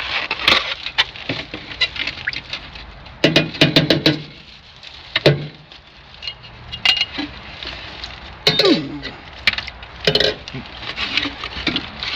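Metal utensil clicking and clinking against a jar and food containers while fishing out jalapeños, a run of irregular sharp knocks. A short murmur of voice is heard twice.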